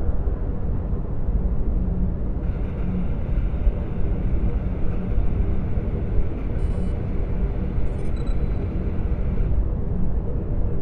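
Sound-designed starship hyperspace ambience: a steady deep rumble of a Venator-class Star Destroyer's bridge in hyperspace. A faint higher hiss joins about two seconds in and fades near the end, with a few brief electronic chirps in the middle.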